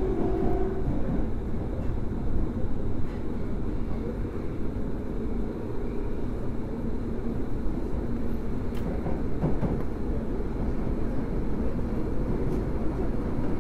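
Osaka subway 23 series train standing with its equipment running: a steady low hum with a few faint clicks, and a short steady tone in the first second.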